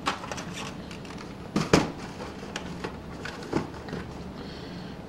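Handling noise of small HO scale boxcars and their cardboard boxes: scattered light clicks and rustles, with a sharper knock about a second and a half in and another about three and a half seconds in.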